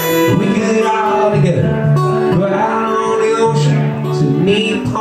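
Acoustic guitar strummed in a live solo performance of a country-folk song, played continuously between sung lines.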